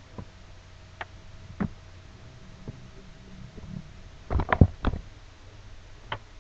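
Scattered sharp clicks and knocks, with a quick cluster of louder knocks about four and a half seconds in, over a faint low rumble and a faint steady hum.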